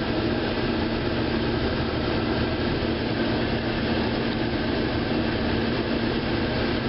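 Vehicle engine idling, a steady hum with a constant low drone, heard from inside the cab.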